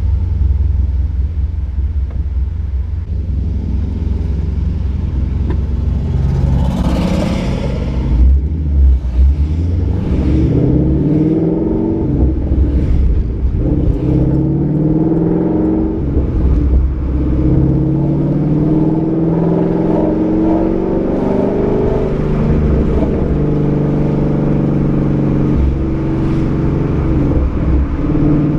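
Ford Mustang 5.0's V8 through a Roush axle-back exhaust and off-road X-pipe, driving and accelerating through the gears. The engine note climbs and drops back several times over a steady low rumble, with a brief rushing noise about seven seconds in.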